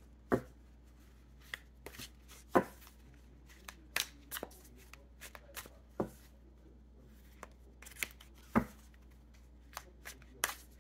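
A deck of tarot cards being shuffled overhand by hand. The cards tap and slap against each other in irregular sharp clicks, with several louder knocks among them.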